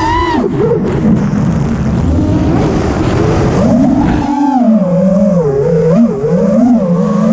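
Brushless motors of a 5-inch FPV freestyle quadcopter whining, the pitch swooping up and down with the throttle. From about half a second to about four seconds in, a rough rushing noise buries the whine; then it comes back clearly, wavering as the quad weaves.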